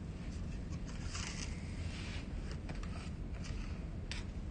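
Metal spoons scraping and clicking as cookie dough is scooped from a mixing bowl and pushed off onto a paper-lined baking tray, with a few sharp clicks among soft scrapes over a low steady hum.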